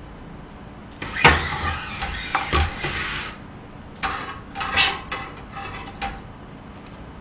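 Kitchen knife clattering and knocking on a glass cutting board and a plate: one sharp clatter about a second in, then a rough scraping, and then short clusters of chopping strokes as onion is cut.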